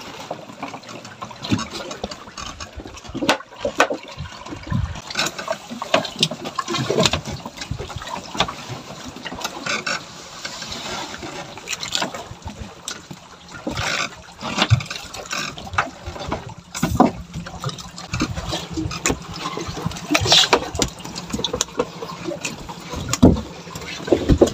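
Irregular knocks and thumps of handling on an outrigger fishing boat's deck, over water sloshing against the hull. A faint steady low hum joins about two-thirds of the way through.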